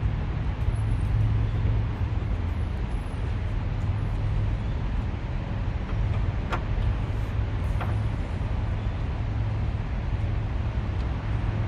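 Steady rumble of highway traffic, with a couple of faint clicks about six and a half and eight seconds in.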